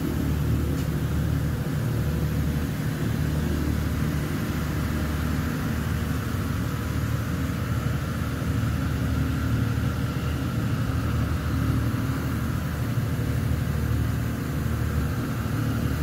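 Ship's HVAC plant running steadily: ventilation fans and air-handling units giving a continuous low rumble under an even hiss of moving air, with no change throughout.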